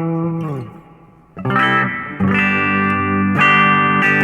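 Electric guitar strummed through a small Roland Micro Cube RX practice amp. A chord slides down in pitch and fades, then a new chord comes in about a second and a half later and is strummed on, ringing and restruck.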